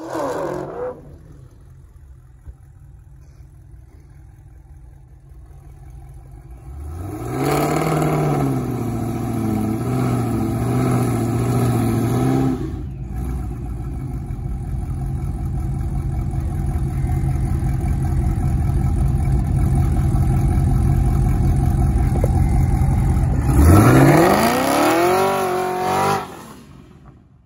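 Chevrolet Camaro engine on a drag strip. It idles low, is revved and held high with a wavering pitch, then runs on in a long steady drone. Near the end the revs climb sharply as it launches, and the sound fades away down the track.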